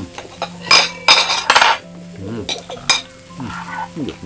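Metal fork and knife scraping and clinking on a ceramic plate while cutting a pancake, in several short bursts, the longest a scrape about a second in.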